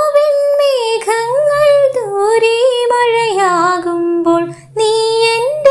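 A woman's solo singing voice, high-pitched, holding long notes that slide between pitches, with a brief break about four and a half seconds in.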